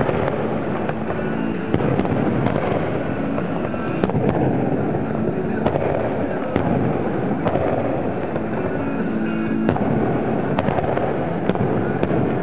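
Aerial fireworks display heard close up from the firing site: a dense, unbroken run of shell launches and bursts, with sharp bangs every second or so over a steady din.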